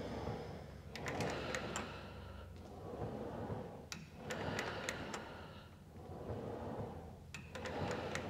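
Pilates reformer in use: the carriage slides along its rails while the straps' ropes run through the pulleys, with sharp clicks, going in a cycle about every three seconds as the legs circle.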